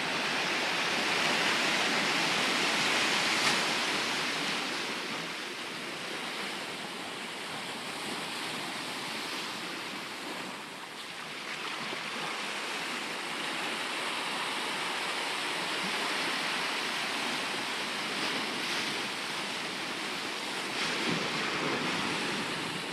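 Ocean surf washing continuously, swelling and easing, loudest in the first few seconds and dipping briefly about halfway through.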